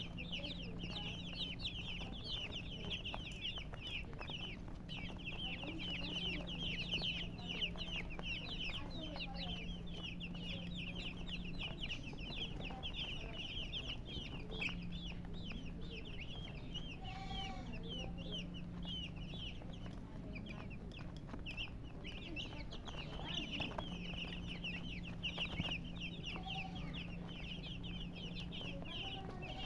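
A flock of chicks peeping continuously in rapid, high-pitched chirps, with an occasional lower call from a hen, one clear one about halfway through. A steady low hum runs underneath.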